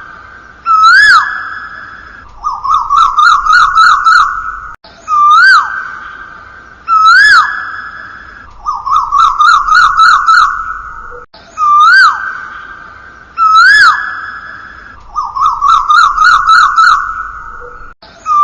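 A looped audio track of bird-like whistled calls. Each cycle is two swooping notes followed by a quick trill, repeating identically about every six and a half seconds.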